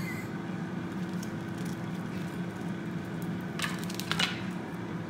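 Steady low background hum, with a few faint clicks and a brief scraping rustle about three and a half seconds in.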